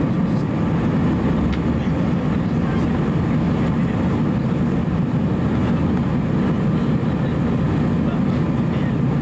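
Airbus A320 engine and airflow noise heard inside the cabin over the wing during the climb after takeoff: a steady low drone with rushing air, unchanging throughout.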